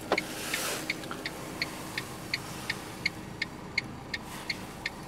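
2009 Mitsubishi Colt's hazard-light flasher ticking steadily, about three clicks a second, as the hazard lights blink. The idling engine hums steadily underneath.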